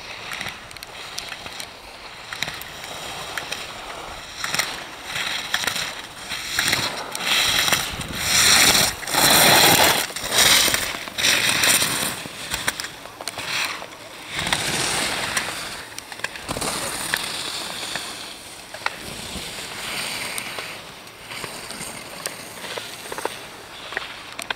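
Slalom skis carving turns on hard-packed snow: a rasping scrape that surges with each turn, loudest in a run of turns near the middle, with a few sharp clicks.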